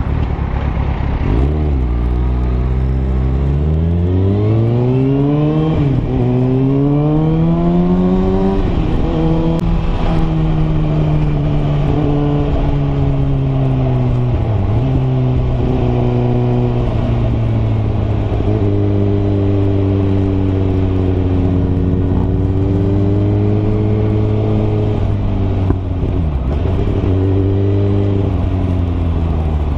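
Sport motorcycle engine pulling away from low speed. Its pitch climbs through the gears and drops briefly at each gear change, about 6, 8, 14 and 26 seconds in. In between it runs fairly steadily at cruising speed, with constant wind rush.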